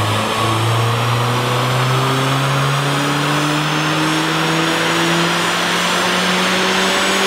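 Mercedes-AMG A45 4Matic's turbocharged 2.0-litre four-cylinder, heard through a Scorpion cat-back exhaust, pulling up through the revs under load on a rolling-road dyno. Its pitch climbs slowly and evenly.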